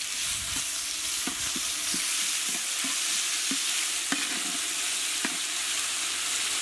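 Ginger-garlic paste frying with a steady sizzle in hot Dalda vanaspati with whole spices, in a large metal pot. A metal spatula stirring it scrapes the pot with short, irregular ticks.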